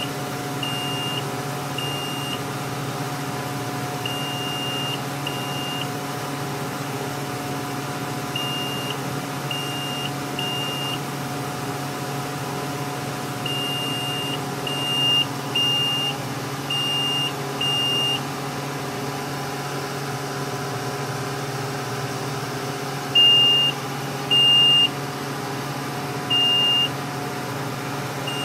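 Overload alarm of a Greer RCI 510 load moment indicator on an RT 780 crane: short, high-pitched beeps in irregular groups, louder near the end, over a steady low hum. The alarm sounds with no load on the hook, the sign of a fault in the crane's load-sensing system.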